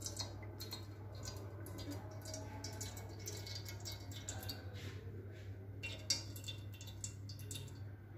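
Faint room tone: a steady low hum with scattered small clicks and ticks, one a little louder about six seconds in.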